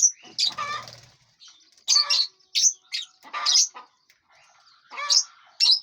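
Lovebirds in an aviary giving short, high chirps and squawks in irregular bursts, about eight calls with brief pauses between them.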